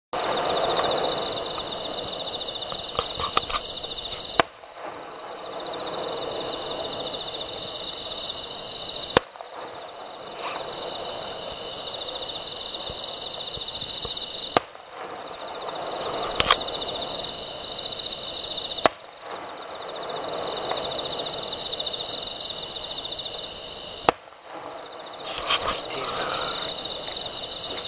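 Distant fireworks going off, a sharp bang about every five seconds with a few lighter cracks between, over a steady high chirring of insects.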